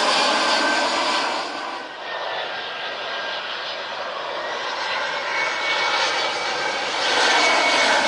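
Turbofan engines of airliners on landing approach, first an Airbus A320 and then a Boeing 737, with a gliding fan whine over the jet noise. The sound drops away about two seconds in and builds again near the end as the next jet comes in low overhead.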